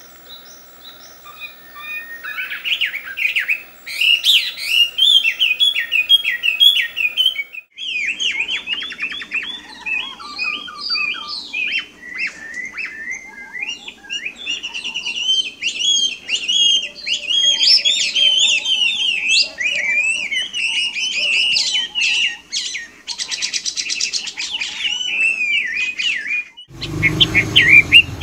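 Chinese hwamei (melodious laughingthrush) singing: a long, rapid run of varied whistled phrases with notes sweeping up and down in pitch. The song starts faintly and becomes loud about two seconds in.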